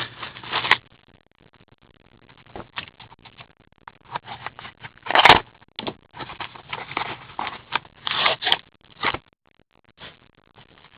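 Trading cards and pack wrappers being handled: an irregular run of short scrapes, rustles and crinkles, with a louder burst about five seconds in.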